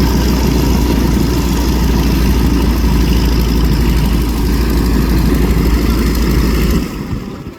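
Piston engines of propeller-driven Van's RV kit aircraft making a flyby, a loud steady drone with a strong low hum that drops away sharply near the end.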